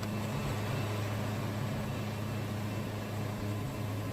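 Wood-Mizer band sawmill running with a steady, even hum.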